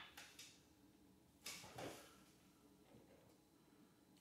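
Near silence, broken by faint handling noise: a short scrape or knock of a pepper mill being picked up and moved, about one and a half seconds in.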